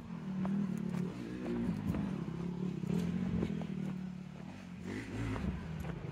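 Off-road motorcycle engines running, their pitch rising and falling as they rev, with footsteps clicking over it.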